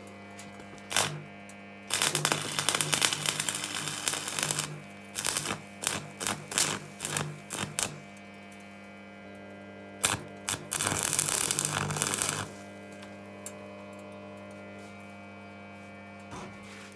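Electric arc welding: a steel cross bar tack-welded onto a thin steel barrel hoop, the arc crackling and sizzling in several bursts, a long one about two seconds in, a run of short ones, then another near twelve seconds, over a steady electrical hum.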